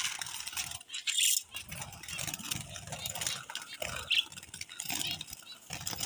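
Wire bird cage rattling and clinking irregularly as hands reach in to catch finches, louder about a second in.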